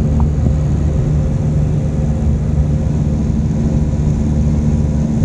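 Cessna 172's piston engine and propeller droning steadily in cruise flight.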